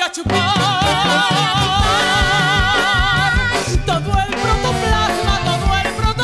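A song with a band: a high voice holds one long note with vibrato over a steady beat of bass and drums, breaking off about three and a half seconds in while the band plays on.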